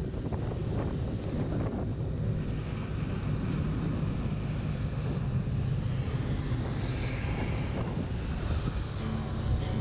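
Wind buffeting the microphone over the steady low drone of a Honda Vision 50cc scooter running at cruising speed along tarmac. Music begins about nine seconds in.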